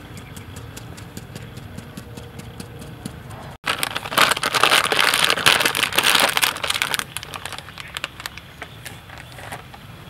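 Metal mesh sieve shaken over a steel bowl, flour sifting through it with fine rapid ticking. After a sudden break about three and a half seconds in, a plastic flour bag rustles loudly for about three seconds as flour is poured into the sieve, then the quieter ticking of the sifting returns.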